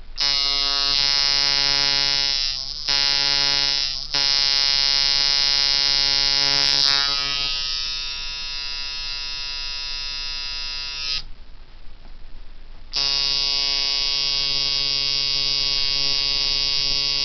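Coil tattoo machine on a Junebug frame with Workhorse Irons coils, buzzing on 6 volts as its armature bar cycles against the contact screw. It runs in several stretches with short stops, turns quieter and thinner from about seven seconds in, cuts off about eleven seconds in, and starts again near the end.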